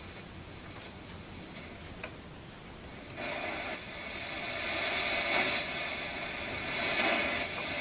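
Radio static hissing from the loudspeaker of a Realistic Portavision 19 portable TV with AM/FM radio. It comes in about three seconds in, after a faint click, and rises and falls as the radio is tuned.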